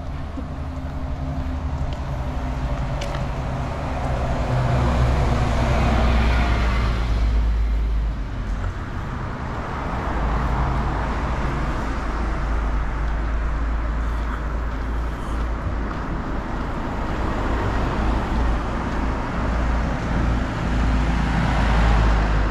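Cars driving past on a village street, their engine and tyre noise swelling and fading several times, loudest about five seconds in and near the end.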